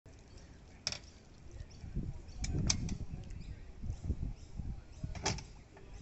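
Four sharp clicks and knocks, two of them close together in the middle, over an uneven low rumble.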